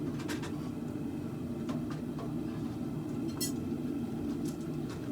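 Steady low roar of a running forge, with a few light metallic clinks and taps over it and one sharper metal strike a little past halfway.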